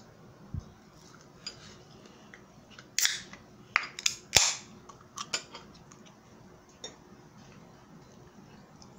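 Aluminium beer can being opened: sharp pops from the pull-tab, each with a short hiss of escaping gas, the loudest about four and a half seconds in, followed by a few light clicks.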